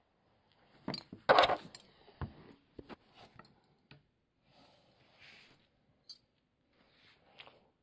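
Handling noise from a phone being picked up and moved: scattered knocks, clicks and rustling, the loudest a short burst about a second and a half in.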